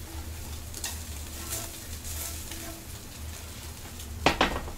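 Food sizzling in a pot on the stove while it is stirred with a spatula, with light scrapes. Just before the end, two sharp metal clanks of the utensil against the pot.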